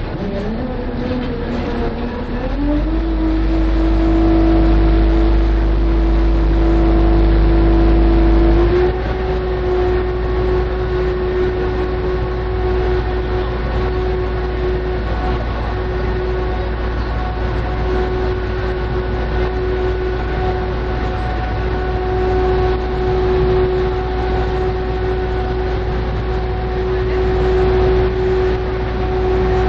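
A motor vehicle's engine speeding up with a rising hum over the first few seconds, then running at a steady pitch over a constant low rumble. The pitch steps up slightly about nine seconds in.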